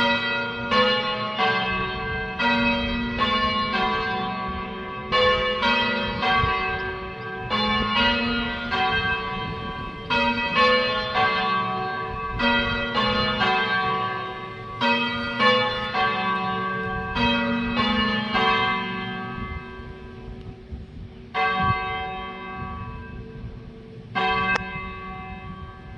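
Ring of three Taylor-cast church bells rung full-circle, strikes following one another in a steady rhythm. About three-quarters of the way through, the strikes thin out to a few isolated blows that ring away.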